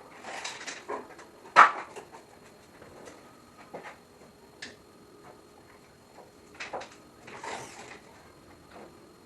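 Scattered knocks, clicks and brief scrapes of objects being handled in a workshop, with one sharp knock about a second and a half in.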